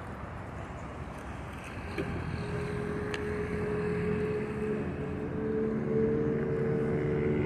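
A steady engine hum, its pitch holding even, comes in about two seconds in and grows gradually louder over a background hiss.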